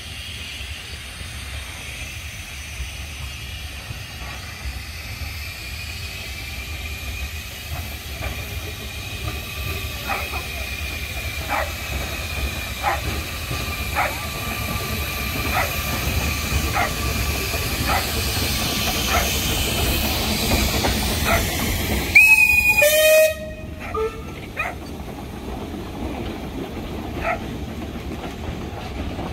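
Narrow-gauge steam train passing close by, growing louder as it draws level, with a thin high squeal and its wheels clicking over rail joints about once every second and a bit. About three-quarters of the way through comes one short, loud, shrill whistle blast, then the coaches roll on with the clicks continuing.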